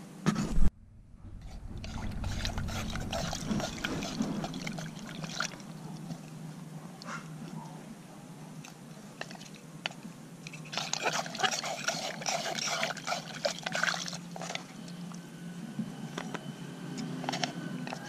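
Wooden chopsticks dipping into a clay pot of water and lifting grubs out, with small splashes, drips and light clicks, busiest in the middle of the stretch. A brief loud thump comes just after the start.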